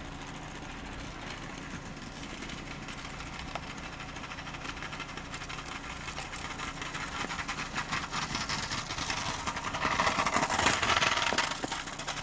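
A vehicle engine idling steadily, with a louder rushing noise that builds in the second half and falls away near the end.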